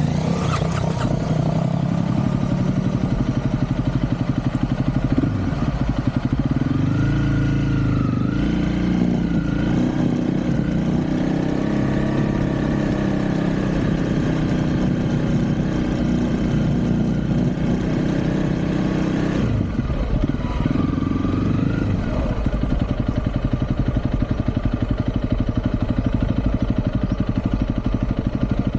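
Motorcycle engine running while riding, its pitch rising and falling between about six and twelve seconds in and again around twenty seconds in, with a steady rush of noise underneath.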